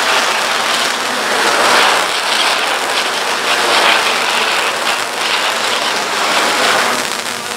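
A firework fountain hung beneath a flying drone, burning with a steady rushing hiss as it sprays sparks.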